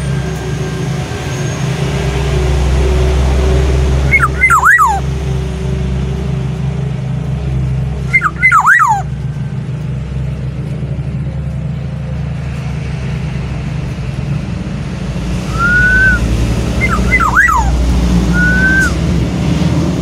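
Black-naped oriole calling: three short bursts of fluty whistled notes that glide downward, about four and eight seconds in and again near the end, with two brief level whistles around the last one. A steady low rumble runs underneath throughout.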